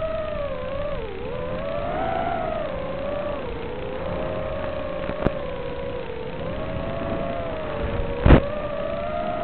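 Whine of a 5-inch FPV quadcopter's motors and props, its pitch wavering up and down with throttle. There is a sharp click about five seconds in and a louder crackling pop about eight seconds in.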